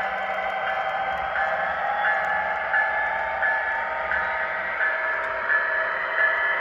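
Model-railroad diesel locomotive sound, the engine running steadily with a bell ringing at an even beat of about three rings every two seconds.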